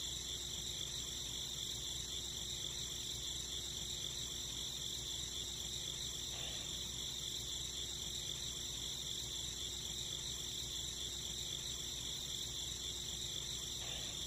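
Steady chorus of crickets trilling, high-pitched and unbroken.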